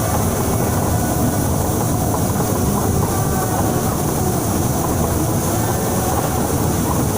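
TransJakarta bus driving in heavy rain: a steady low rumble of engine and tyres under an even hiss of rain.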